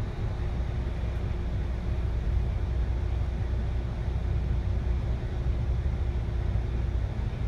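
Double-decker city bus engine running, heard from inside the upper-deck cabin: a steady low drone with a faint steady hum over it.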